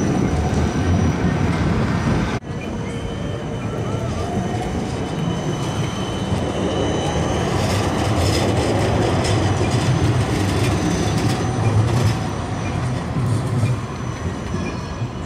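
Siemens Combino trams running on street track: a low wheel-on-rail rumble as one passes close, then, after a break about two seconds in, another tram rolling past with faint high wheel squeal. The rumble grows louder in the middle and fades near the end as the tram moves away.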